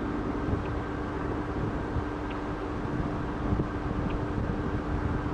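Steady low rumble with a constant hum, as of a vehicle running, with a faint tick about every two seconds.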